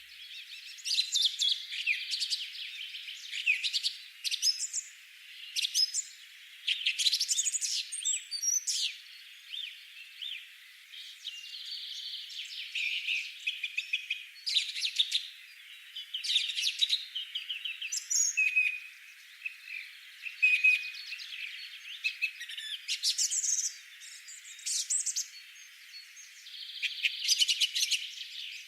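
Birds chirping and singing in quick, repeated short phrases, several overlapping, high-pitched with no low end.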